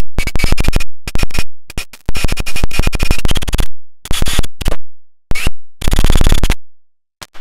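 Rapid, loud crackling clicks of electromagnetic interference picked up by a clip-on microphone from a Lucas K2F magneto firing its spark plugs as a cordless drill spins it. The clicks come in bursts broken by short silent gaps, with a faint steady high whine underneath. The crackle is the sign that the magneto is producing a spark.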